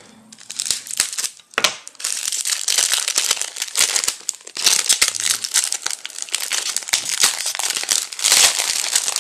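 Gift-wrapping paper being unwrapped by hand, crinkling and tearing. The crackling is sparse at first and becomes a dense, continuous rustle from about two seconds in.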